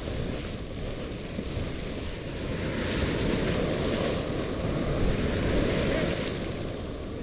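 Waves breaking and surf washing through the shallows, with wind buffeting the microphone; the wash swells about three seconds in and eases off near the end.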